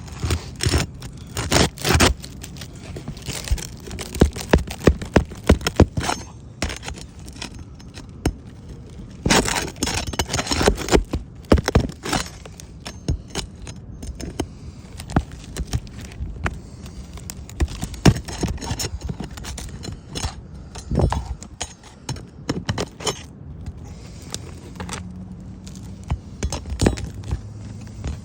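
Metal tool prying and scraping under old asphalt roof shingles to free the nails, a run of irregular sharp clicks, scrapes and cracks coming in clusters. The shingles are brittle with age and crack as they are worked.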